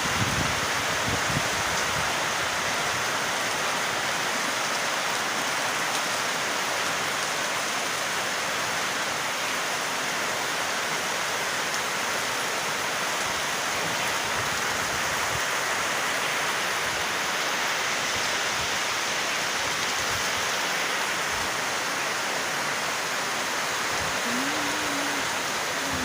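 Steady, heavy rain falling, an even hiss with no let-up. Near the end a short pitched sound, like a voice, rises briefly over it.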